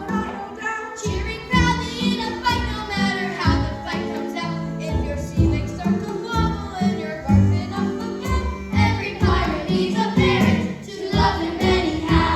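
A song from a children's musical: voices singing a melody over instrumental accompaniment.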